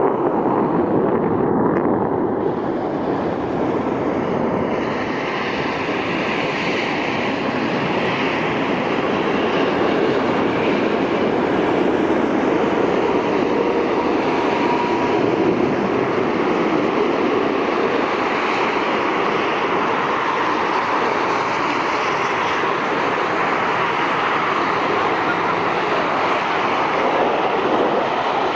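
Steady, continuous jet engine noise from four F/A-18 Super Hornets flying overhead in diamond formation; the loudness holds nearly even throughout, easing slightly a few seconds in.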